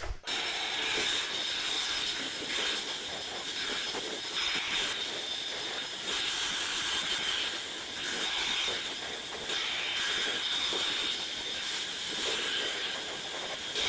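EGO cordless blower running steadily, a rush of air with a high fan whine, blowing rinse water off a car to dry it.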